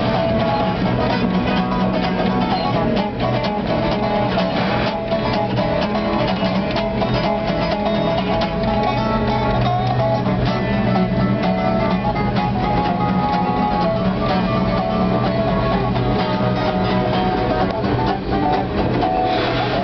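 An acoustic guitar and a resonator guitar playing a ragtime blues instrumental together, with the rumble and rattle of the moving freight car underneath.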